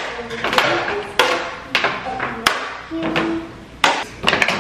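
Plastic plates clattering and knocking together as they are stacked and lifted out of a dishwasher's bottom rack, a quick run of sharp clicks, over background music.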